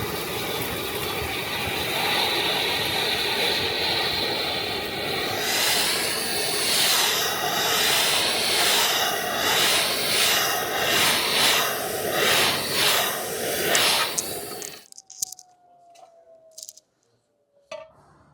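Three-phase side channel blower industrial vacuum (Depureco ECOBULL TAN) running under suction while picking up foundry debris and drill chips. A steady rushing sound turns, about five seconds in, into a whoosh that swells and dips about once a second. The sound cuts off abruptly near the end, leaving a faint falling tone.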